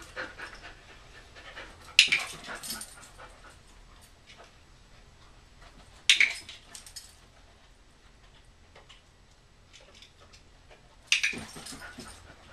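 A dog panting and whimpering, with three sharp, loud sounds about four seconds apart, each trailing off over about a second.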